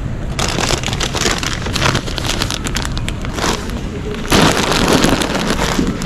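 Plastic grocery packaging crinkling and rustling as it is handled, in irregular crackly bursts, louder from about four seconds in.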